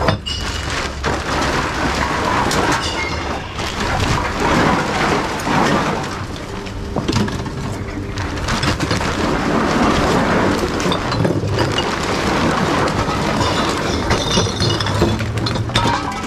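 Glass bottles clattering and smashing as they are dropped one after another into a reverse vending machine, a continuous jumble of sharp clinks and crashes.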